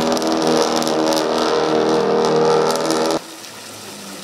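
Subaru Impreza rally car's flat-four engine running at a steady pitch as the car drives off. About three seconds in it cuts off abruptly to the faint steady splashing of a fountain.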